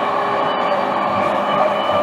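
Running sound of a JR East E233-series electric train heard inside its motor car: a steady rolling rumble with a steady whine over it as the train runs at speed. The set has an abnormal noise, which the rider noticed.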